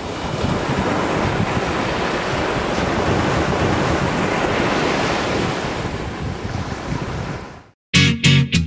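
Surf breaking and washing up a sandy beach, with wind on the microphone, a steady rush that fades out about seven and a half seconds in. Near the end an upbeat guitar-led song with a strong beat starts.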